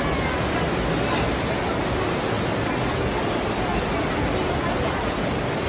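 Steady rushing noise of water in an underground cave river.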